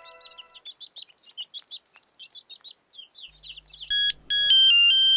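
Small birds chirping in quick short calls while a chime rings out and fades in the first moment. About four seconds in, a phone's electronic ringtone starts: a loud melody of steady notes that step up and down in pitch.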